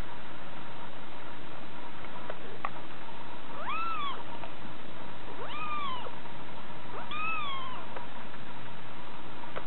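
Kitten meowing three times, each a short high-pitched call that rises and then falls, over a steady background hiss.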